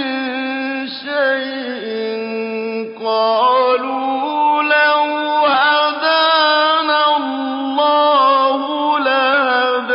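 A man's solo voice chanting the Quran in a slow, melodic style, holding long notes that bend and waver in pitch, with a brief break about three seconds in.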